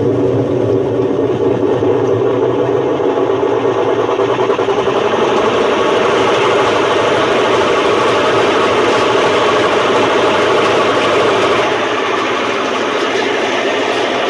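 Washing machine spinning at full speed in its spin cycle, a loud, steady, harsh mechanical racket from its drum bearings, which are blown. The noise eases off a little near the end.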